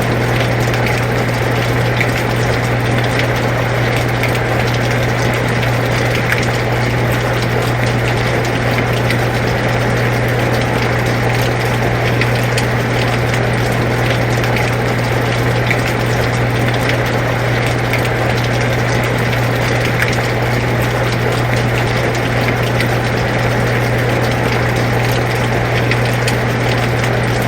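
Air conditioner running with a steady low hum, layered with steady rain: an even hiss of falling rain dotted with the ticks of individual drops.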